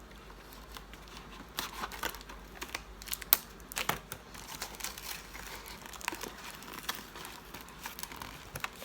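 Plastic packaging crinkling and heavily applied packing tape tearing as a package is pulled open by hand, in irregular crackles and snaps, the sharpest a little over three seconds in.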